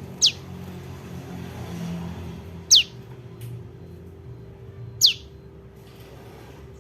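Young prenjak lumut calling: three sharp, quickly falling chirps, each about 2.4 seconds apart, over a low steady hum.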